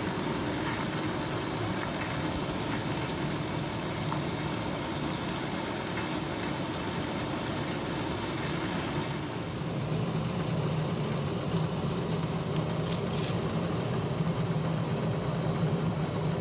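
Stovetop steamer running with the heat on: a steady low rumble and hiss of water boiling beneath the steaming fish. It grows a little stronger from about ten seconds in.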